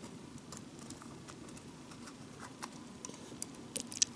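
Small plastic kit parts clicking and tapping faintly as a model shelter's roof piece is worked onto its thin pillars, with a few sharper clicks near the end. The roof is not seating, which the builder suspects is a mismatch between the sizes of the pegs and holes.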